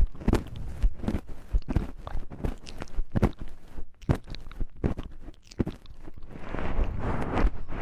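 Close-miked ASMR handling sounds: a run of irregular crisp clicks and taps, giving way about six seconds in to a denser scratchy rustle.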